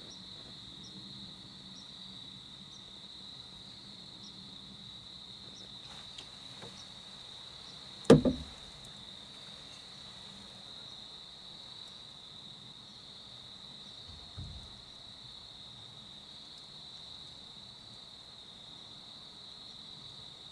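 Crickets chirping steadily, then a single loud gunshot about eight seconds in, with a short echo rolling off after it. A fainter low thump follows a few seconds later.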